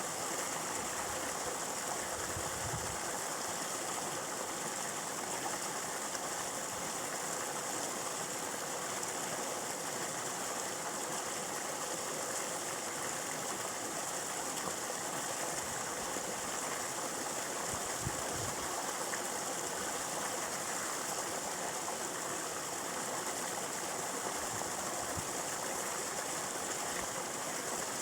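Steady rushing noise of running water, even throughout, with a couple of faint low thumps, one near the start and one about two-thirds of the way in.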